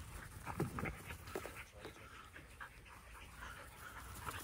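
Dogs panting, with a few short irregular sounds, the loudest about two-thirds of a second in.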